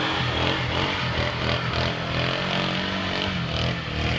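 ATV engine revving under load as the four-wheeler churns through a mud hole, its pitch rising and falling.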